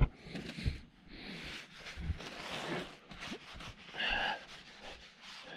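A rag and gloved hand working on a steel workbench: a sharp knock at the start, scattered faint rustles and small clinks, and a short squeaky rub about four seconds in as the rag wipes across the steel.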